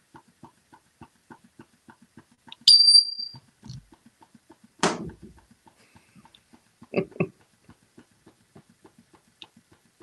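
African grey parrot vocalizing: a short high whistle about three seconds in, a harsh squawk near five seconds, and two quick short calls around seven seconds. A faint regular ticking runs underneath at about three a second.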